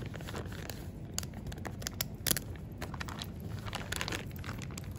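Plastic zip-top bag crinkling in irregular crackles as hands knead mashed strawberries and liquid inside it.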